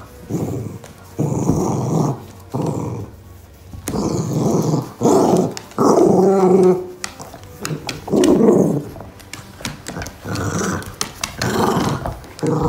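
Small poochon dog growling in play, a run of rough growls each half a second to a second long with short gaps between, while it tussles with a ball.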